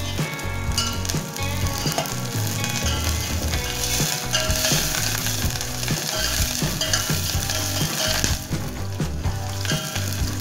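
Sliced onions sizzling in hot oil in a stainless steel pot while a steel ladle stirs them. The sizzle grows louder about four seconds in and eases back after about eight seconds.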